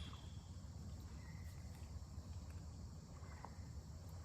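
Faint steady insect chirring over a low steady rumble, with a few short, thin chirps scattered through.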